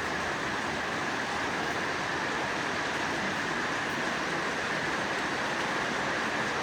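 Heavy rain falling steadily, an even wash of noise with no breaks.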